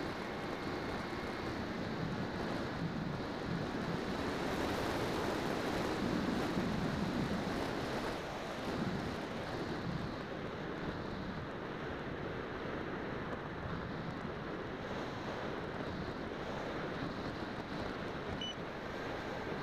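Steady rush of wind over the microphone of a keychain camera riding on a Bixler 2 electric RC plane in flight, a little louder for a few seconds around the middle, with a faint whine from the motor and propeller near the start and end.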